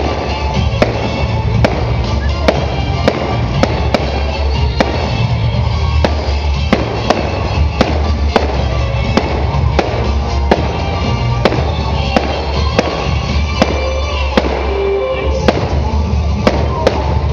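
Aerial firework shells bursting in a rapid, irregular series of sharp bangs, about two a second. Loud music with a heavy bass plays underneath.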